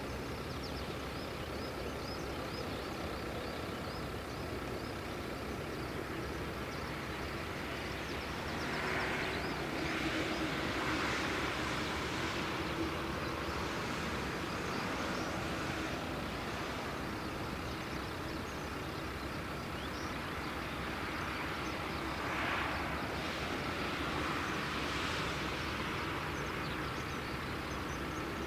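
Distant jet engines of a Boeing 747-8F taxiing off the runway: a steady rumble with a constant whine. It swells louder and brighter twice, about a third of the way in and again past the three-quarter mark.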